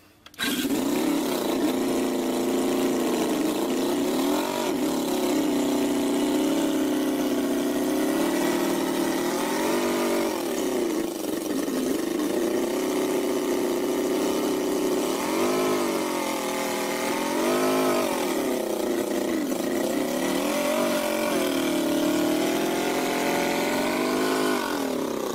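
Miniature inline four-cylinder model engine running at a fast idle, blipped up in revs and back down several times, about ten seconds in and twice more in the second half.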